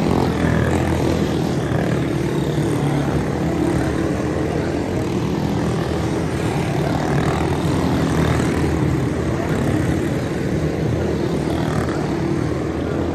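A pack of quarter midget race cars circling a small oval, their small single-cylinder engines running together in a continuous, overlapping buzz as they pass through the turn.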